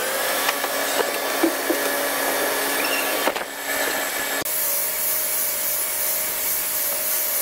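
Electric power tool running with a steady motor whine, the last part a rotary polisher buffing car paint. The sound changes abruptly a little past three seconds and again past four.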